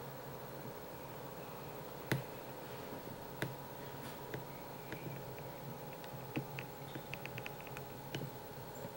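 A steady low hum of room tone, broken by a few sharp clicks and, about three-quarters through, a quick run of short high ticks, several a second.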